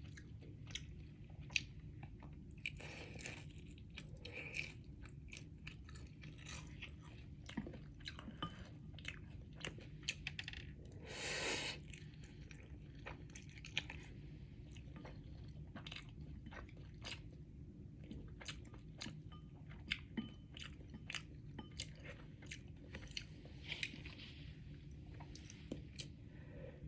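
Close-miked chewing of Samyang carbonara instant noodles: many small wet mouth clicks and smacks, with one longer breathy noise lasting under a second about eleven seconds in.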